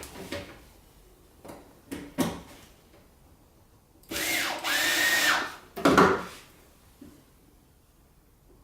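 Electric screwdriver driving a screw into a lamp socket: a short whine of the motor that rises and dips, then runs steady for about a second. A sharp knock follows, with a few light clicks before it.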